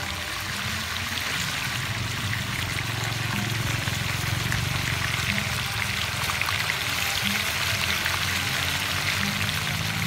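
Coca-Cola poured into a metal cooking pot over a whole chicken, a steady pour with a fizzing, crackling hiss that swells a little over the first couple of seconds.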